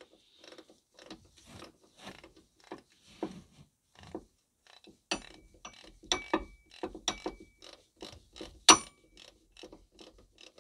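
A ratchet wrench clicking in short back-and-forth strokes as it backs out the freshly loosened T50 Torx bolt of the auxiliary drive belt tensioner. The clicks come a few a second and unevenly, with a sharper clack late on.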